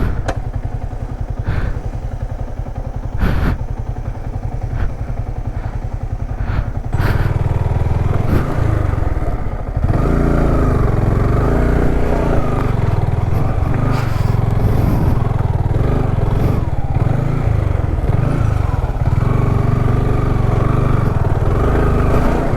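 Motorcycle engine running under load on a rough off-road track, with sharp knocks and clatter in the first few seconds. The engine gets louder about seven seconds in and again at about ten seconds.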